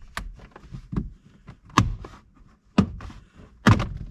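Plastic interior trim panels being pried loose with a panel removal tool: a series of about five sharp clicks and knocks as the clips pop and the panels are handled, the loudest in the second half.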